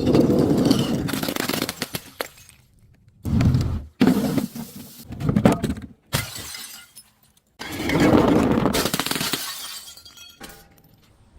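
Glass bottles shattering and crunching in a series of about six breaks, each starting suddenly. The longest and loudest come at the start and about seven and a half seconds in.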